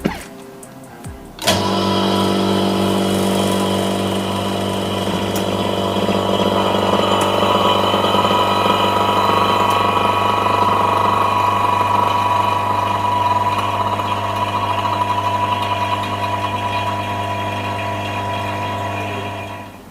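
Phone-screen laminating machine starting up suddenly and running with a steady motor hum, then shutting down near the end, while it presses a display and its OCA sheet together during a glass replacement.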